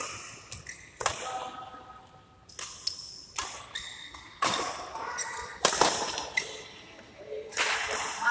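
Badminton rally: rackets striking a shuttlecock, a string of sharp cracks about a second apart with the loudest about five and a half seconds in, each followed by a short echo in a large hall.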